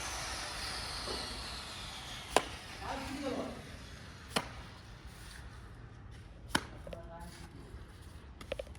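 Sharp knocks, three of them about two seconds apart, over a hiss that fades away with a high tone falling in pitch.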